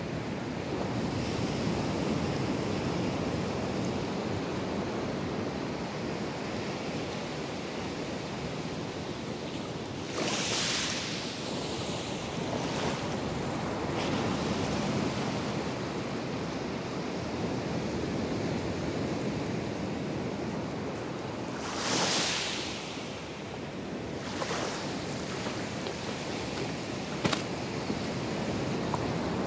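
Atlantic surf breaking on the beach: a steady wash of waves, with two louder hissing surges of breaking water, about a third of the way in and again about three quarters through.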